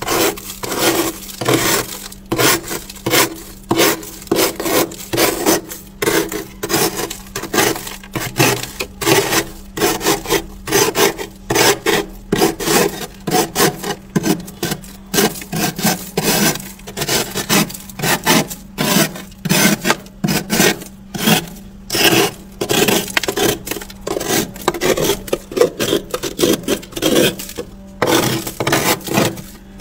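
Thick freezer frost being scraped with a hand tool in quick repeated strokes, about two a second, each a gritty rasp. A faint steady hum runs underneath.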